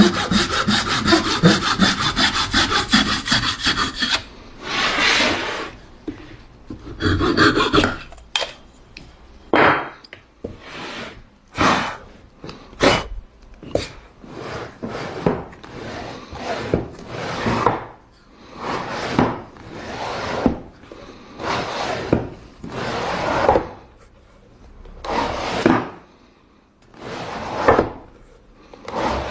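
A hand tool working wood in repeated back-and-forth strokes, sawing or rasping. It strokes quickly for the first four seconds, then settles into slower, separate strokes about one a second.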